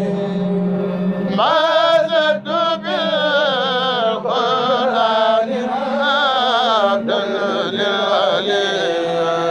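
Mouride xassida chanted a cappella in kourel style by male voices: a lead voice sings a slow, ornamented melody with wavering pitch over a steady low held note. The melody enters about a second and a half in, after the held note alone.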